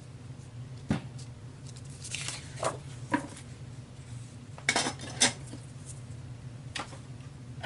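Small hard craft tools and supplies clacking and clinking as they are picked up and set down on a worktable: about half a dozen separate knocks, spread unevenly, over a steady low room hum.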